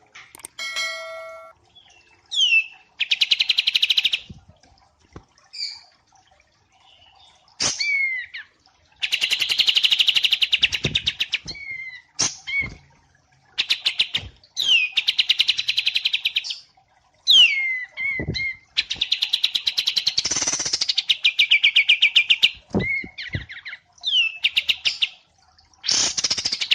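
Songbirds of the kind sold as wambi mini and kapas tembak singing a masteran (training song). The song repeats in phrases, each a quick downward-slurred whistle followed by a fast rattling trill lasting a second or two, with a new phrase every few seconds.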